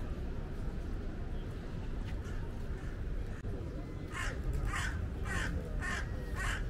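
A crow cawing, five harsh caws in a steady run about two a second, starting a little over halfway in, over a steady low rumble of city background.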